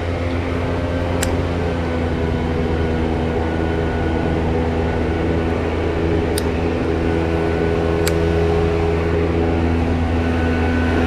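A motor running at a steady speed, a constant low hum with an even drone of overtones above it. A few faint sharp clicks sound about a second in and again around six and eight seconds in.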